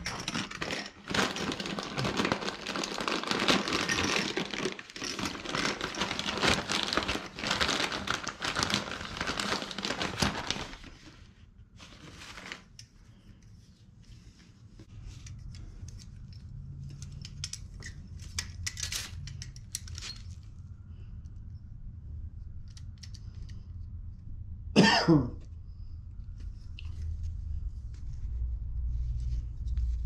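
Plastic packaging crinkling and rustling while a new furnace pilot assembly is unpacked and handled, dense for about the first ten seconds, then scattered light clicks over a low hum. About 25 seconds in there is one short cough-like sound.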